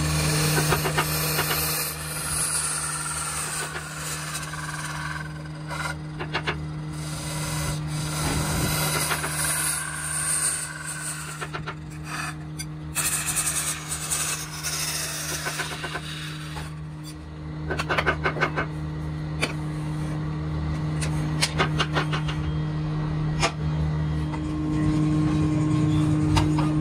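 A belt-driven wood lathe humming steadily while a hand-held chisel scrapes and cuts a spinning wooden disc, the scraping swelling and fading as the tool is pressed in and eased off. A run of sharp clicks comes partway through.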